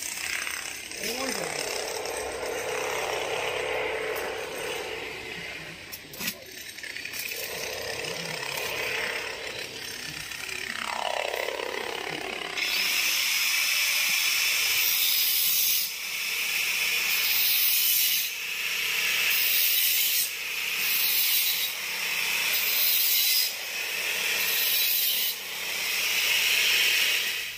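Electric arc welding, steel mesh being tacked to a steel bar frame with a stick electrode. From about twelve seconds in, the arc crackles and hisses in about seven runs of one to three seconds each, stopping and starting as each weld is struck and finished.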